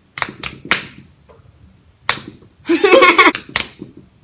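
Fists smacking down onto open palms three times in quick succession, the count of a rock-paper-scissors round. More sharp slaps come about two seconds in and again near the end, around a brief loud vocal outburst a little before three seconds in.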